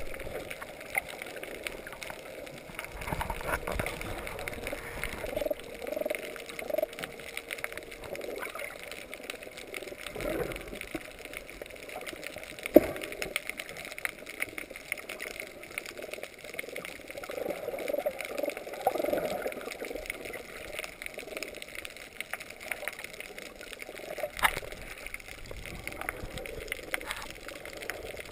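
Muffled water sloshing and gurgling picked up underwater through an action-camera housing, with a couple of sharp knocks.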